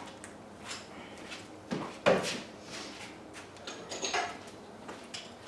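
Tools and parts being handled on a workbench: a few short knocks and clatters, the loudest about two seconds in.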